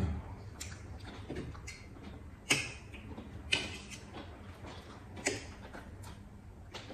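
Eating sounds: chewing, with a few short sharp crunches or clicks about two and a half, three and a half and five seconds in, from bites of fresh cucumber slices and forks against plates.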